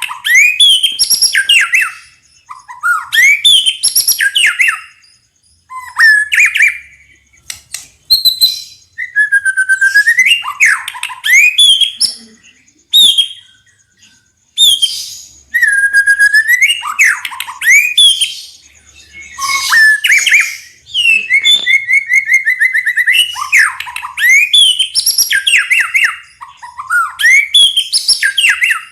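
White-rumped shama (murai batu) singing loudly: phrase after phrase of clear, gliding whistles with short pauses between them. About two-thirds of the way through comes a fast run of repeated notes.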